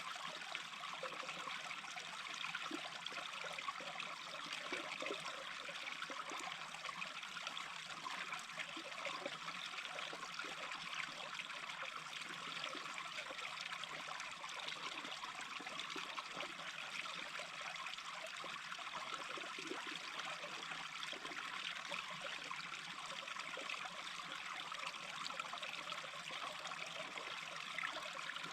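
A small stream babbling steadily over stones, an even trickling and gurgling of shallow running water.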